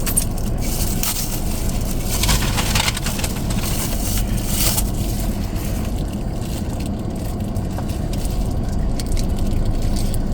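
Close-up crunching of fried chicken being bitten and chewed, in a few loud bursts about one, two and a half and four and a half seconds in, over a steady low rumble from the car.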